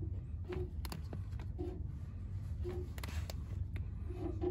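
Torque wrench working the 13 mm nut on a timing belt tensioner: scattered ratchet clicks and light metallic taps, the nut being tightened toward its 21 Nm setting, over a low steady hum.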